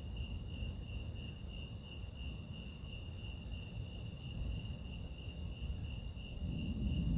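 Chorus of crickets: a steady, high, slightly pulsing chirring, over a low rumbling noise that swells near the end.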